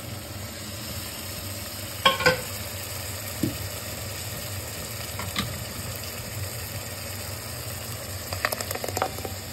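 Tadka (spices tempering in hot oil) sizzling steadily in a cooking pan for chicken. A metal spoon strikes the pan with a ringing clang about two seconds in, and there are a few lighter clinks of stirring near the end.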